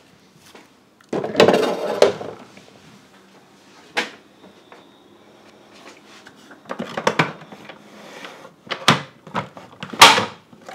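Glass jars and bottles knocking and clinking against each other and the plastic refrigerator door shelf as they are moved in and out, in a series of separate clatters. The loudest knock comes near the end.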